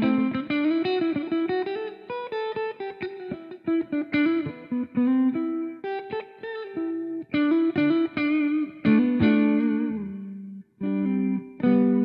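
Electric guitar fitted with a new budget pickup, played through Amplitube 4 amp-simulation software. It plays a line of quick single-note licks with some vibrato, then fuller held notes and chords near the end.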